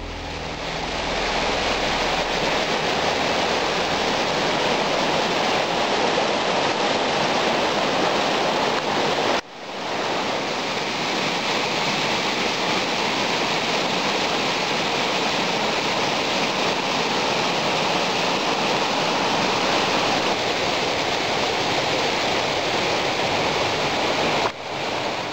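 Rushing water of a mountain stream cascading over boulders, a steady loud rush. It breaks off briefly twice where the shot changes.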